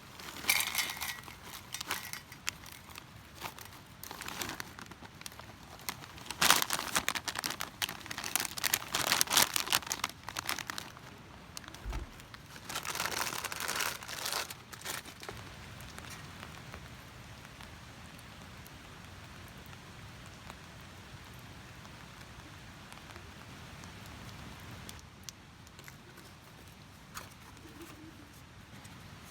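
Crinkling and rustling of crinkly material handled by hand, in bursts through the first half, then a faint steady hiss.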